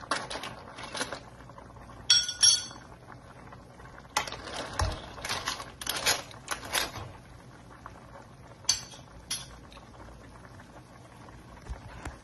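Metal ladle stirring clams in their shells in a frying pan, with shells clinking and the ladle knocking on the pan. A ringing cluster of clinks comes about two seconds in and two more near nine seconds.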